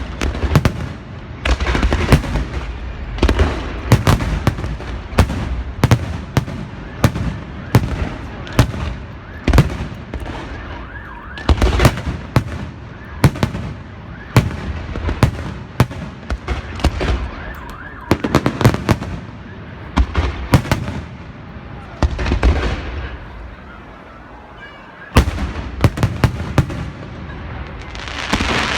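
Fireworks and beehive rockets going off at close range: dense volleys of sharp bangs and cracks, one after another, with a brief lull about 23 seconds in before the bangs start again.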